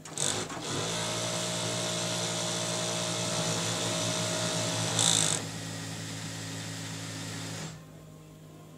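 A Juki feed-off-the-arm chainstitch industrial sewing machine running fast as a garment seam is stitched. It starts just after the beginning, has a brief louder burst about five seconds in, then runs a little quieter until it stops about a second before the end. A steady low machine hum carries on underneath.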